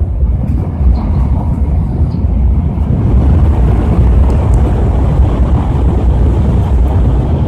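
Steady low rumble inside a Shinkansen passenger car as the train runs.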